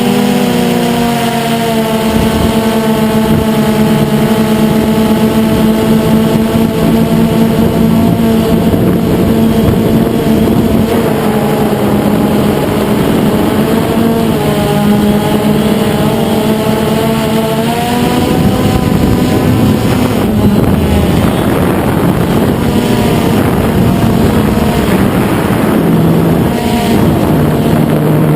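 DJI Phantom 2 quadcopter's motors and propellers running in flight: a steady, loud multi-toned drone whose pitch rises at the start and steps up again about eighteen seconds in as the throttle changes.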